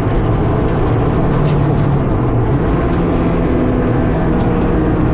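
Track car's engine running under load, heard from inside its stripped, roll-caged cabin along with road and tyre noise; the engine note shifts up and down in pitch as the throttle changes.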